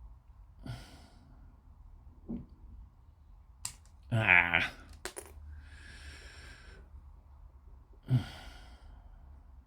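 A man breathing out and sighing, with a short voiced grunt or hum in the middle and a long breath out just after it, and a few small sharp clicks of plastic model parts being handled.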